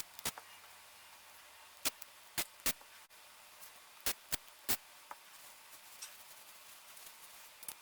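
Irregular sharp clicks and knocks, about eight in all, some in quick pairs, like small hard parts being handled during work on the range-hood fan.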